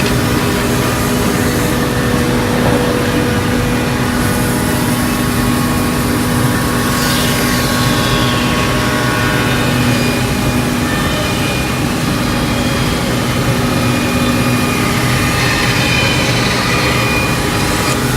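CNC scroll saw running and cutting wood, its blade driven up and down along a programmed path: a steady machine drone with a held hum and a couple of brief sliding tones.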